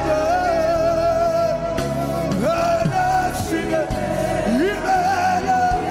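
Live gospel worship music: a band with drum kit playing under long, wavering held sung notes.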